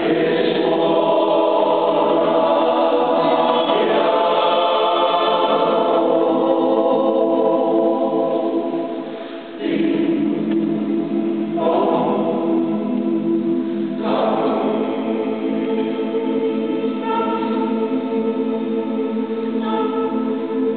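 Male choir singing in harmony, long sustained chords in several voices, in a reverberant church. The sound dips briefly about nine and a half seconds in, and a new phrase begins.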